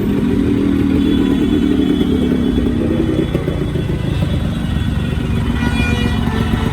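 Yamaha RX-series two-stroke single-cylinder motorcycle engine running steadily, its exhaust note dense and low.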